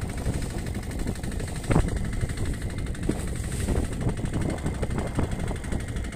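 Small fishing boat's engine idling with a steady low rumble, mixed with wind and water noise at sea.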